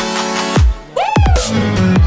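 Dubstep-style electronic background music with a steady beat, falling bass drops, and a short break about a second in before synth sweeps come back in.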